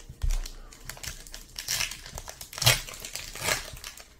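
2021 Topps Heritage baseball card pack wrapper crinkling and crackling as it is torn open by hand, in a series of short crackles, the loudest a little before three seconds in.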